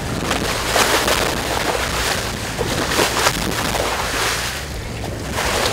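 Water rushing and splashing along the hull of a boat under way, in repeated surges of spray over a steady low rumble.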